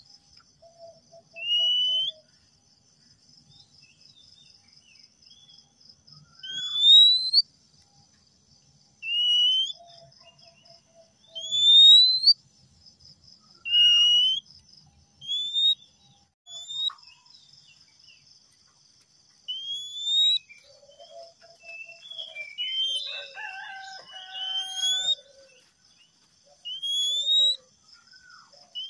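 Male oriental magpie-robin singing: a series of loud, rising whistles repeated every two to three seconds, with a short lower note now and then and a busier run of mixed notes about three-quarters through. A steady high pulsing trill runs faintly underneath.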